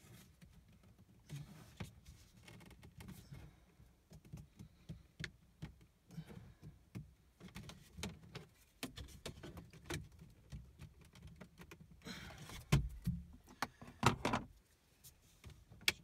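Plastic dashboard trim bezel around a 2017 Dodge Challenger's instrument cluster being pried and pulled loose by hand: scattered light clicks and creaks from the bezel and its retaining clips, with a few sharper knocks between about twelve and fourteen seconds in.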